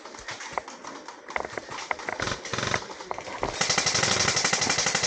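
Scattered sharp clicks, then about three and a half seconds in a rapid, evenly spaced string of cracks lasting about two seconds: an airsoft gun firing on full auto.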